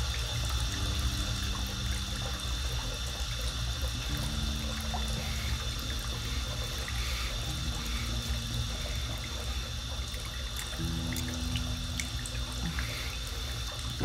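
Water running from a tap into a bathtub, a steady rush, with low held tones underneath that shift a few times.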